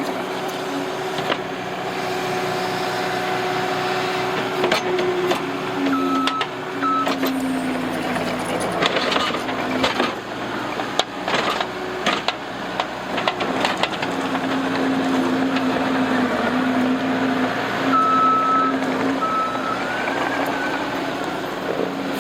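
Case TR270 skid steer's diesel engine running under working load, its pitch shifting as the machine moves, with its reversing alarm beeping about six seconds in and again near the end. Scattered sharp knocks come through over the engine.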